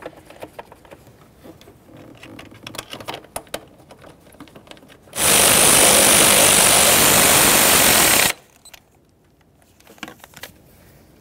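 Cordless power tool running for about three seconds, driving in a 10 mm mounting bolt on the plastic intake plenum. It starts and stops abruptly, with light clicks of tool and parts handling before and after.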